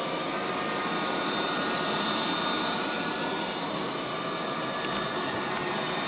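Liectroux B6009 robot vacuum cleaner running on carpet: the steady whir of its suction motor and brushes, with a faint high whine.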